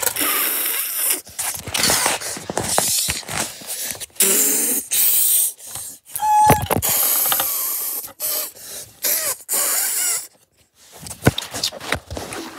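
Breathy hissing and puffing bursts, several in a row, with a short hummed or whistled tone about six seconds in: a person making train noises with their mouth while playing with a wooden toy train. Scattered sharp clicks from the wooden train and track run through it.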